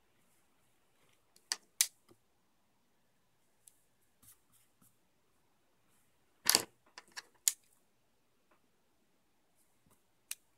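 Scattered sharp clicks and taps of pencils being handled and set down on a desk: two close together early on, a louder cluster midway, and a single click near the end.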